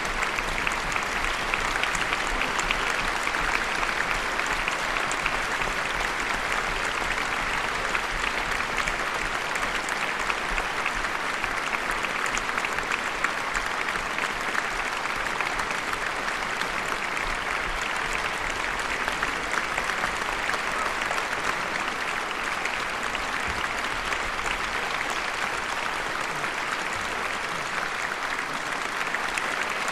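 Large concert-hall audience applauding: many hands clapping in a steady, dense ovation.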